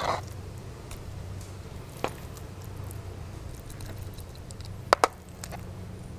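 A spoon knocking against the dishes while scooping salad out of a bowl onto a plate. There is a tap at the start, another about two seconds in, and two quick taps about five seconds in, over a steady low hum.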